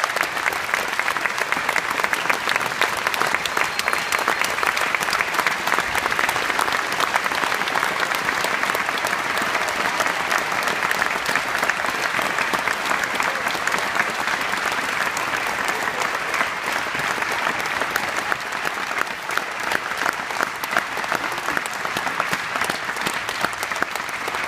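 Audience applauding steadily, with a dense patter of many hands clapping that eases a little near the end.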